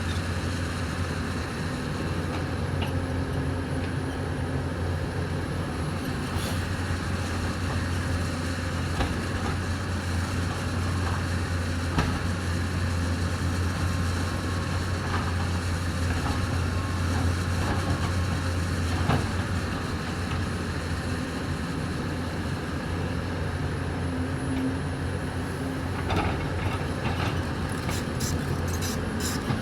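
Hyundai 220 excavator's diesel engine running steadily, with a few sharp knocks, several of them close together near the end.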